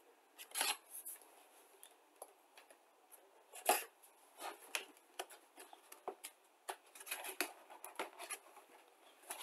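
A cardboard plastic-model kit box being handled and opened on a desk: scattered light taps, scrapes and rustles, the loudest about half a second in and just under four seconds in.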